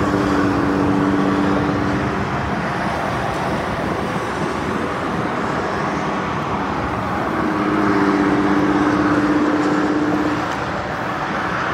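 Road traffic passing close by: a steady rush of tyres and engines, with a low hum from passing vehicles near the start and again from about seven to ten seconds in.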